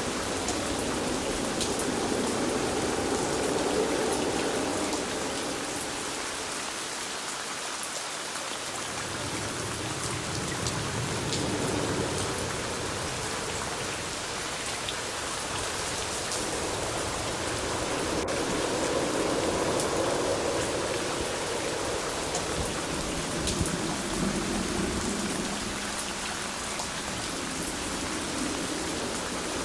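Steady rainfall with many small drops pattering on a surface, swelling and easing slowly.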